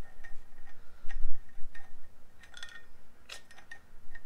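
Light metallic ticks and clinks, irregularly spaced, as the spindle nut is threaded by hand onto a VW Beetle drop spindle while the disc brake rotor is held in place; a few of the ticks carry a short high squeak.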